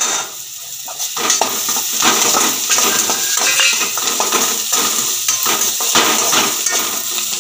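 Chopped onions and garlic cloves sizzling in hot oil in a steel kadai while a perforated steel skimmer stirs them, scraping and clinking against the pan. It gets louder and busier from about a second in.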